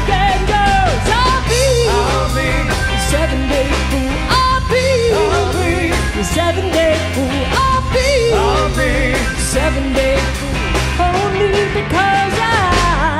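Rock band playing live, with a sung melody over steady bass and drums.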